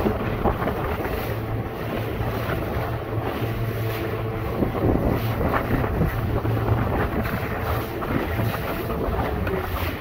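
Wind buffeting the microphone over the steady drone of a small Suzuki outboard motor pushing a 12-foot aluminium boat through choppy sea, with now and then a splash of a wave against the hull.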